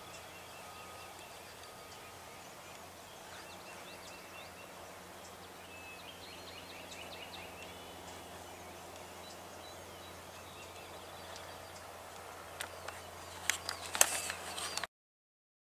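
Wild turkey gobbling, a faint rapid rattle around the middle, over a quiet outdoor background. Near the end a cluster of sharp clicks and knocks is the loudest sound, then the sound cuts off abruptly.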